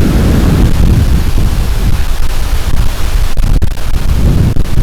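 Gale-force wind blasting straight onto the microphone: a loud, continuous low rumble and buffeting roar from storm gusts strong enough to make walking hard.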